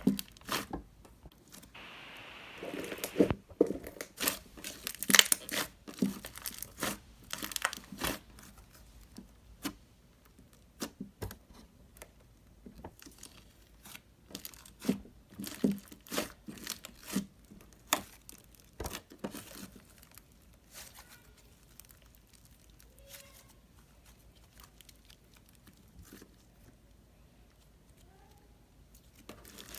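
Hands squishing, poking and stretching a clear slime mixed with fishbowl beads: irregular crackling pops, clicks and crunches, dense at first and sparser toward the end.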